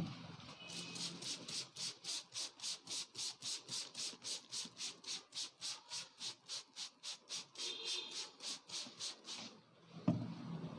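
Hands working a head massage in a steady rhythm, about three soft rubbing strokes a second on the head and hair, stopping near the end, followed by a single thump.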